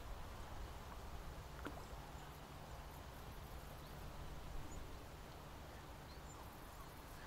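Wind buffeting the microphone: a faint, steady low rumble with a few faint ticks.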